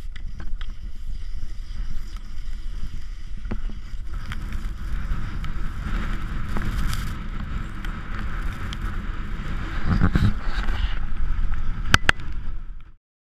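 Wind buffeting an action camera's microphone as it moves with a running dog-sled team over snow: a steady low rush with a hiss on top. A few sharp clicks come shortly before the sound cuts off suddenly.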